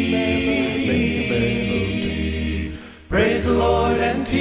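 Male a cappella gospel group singing held chords in harmony, with a strong low bass voice beneath. The voices drop away briefly about three seconds in, then come back in together.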